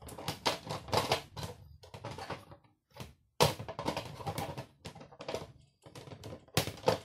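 Irregular sharp clicks and knocks of a plastic mandoline slicer's frame and blade insert being handled, with short scraping rustles between them and a brief pause about three seconds in.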